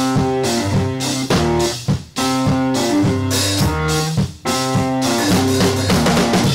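Intro theme music: a band playing, with a drum beat under pitched melodic notes.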